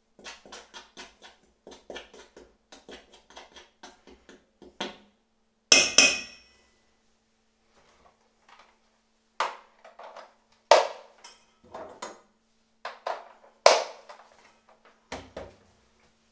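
A spoon stirring flour in a stainless-steel mixing bowl, clicking against the metal about four times a second. About six seconds in comes a loud metallic clatter that rings on briefly, followed by several sharp knocks and clanks of metal kitchen things being handled and set down on a wooden board.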